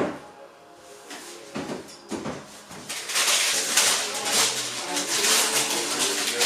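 Kitchen handling noises: a sharp knock at the start, two softer knocks a couple of seconds later, then a few seconds of uneven rustling.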